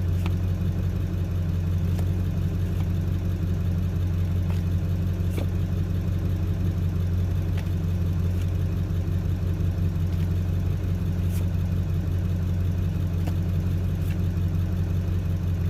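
A steady low rumble, with faint light clicks here and there.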